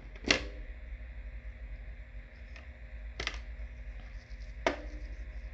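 Three sharp clicks of a small tool prying a little plastic piece out of an opened smartphone's frame, the first the loudest, the last ringing briefly, over a steady low hum.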